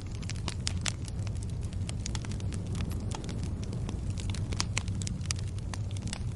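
Firewood burning, with frequent sharp crackles and pops at irregular moments over a steady low rumble.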